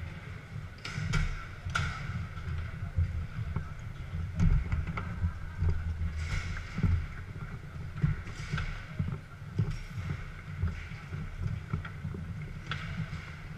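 Garlando foosball table in play: irregular sharp knocks and clacks of the ball and rods, with a low rumble of the table, and hall chatter behind.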